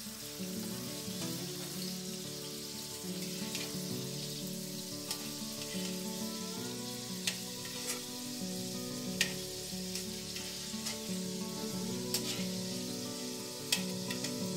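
Bell pepper strips sizzling in hot oil in a wok, with a steady hiss and sharp clicks as a metal spatula knocks against the wok while scooping them out, over background music.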